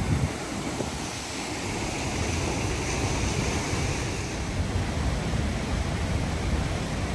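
Steady rush of the McKenzie River at Sahalie Falls, with wind buffeting the microphone in a low rumble.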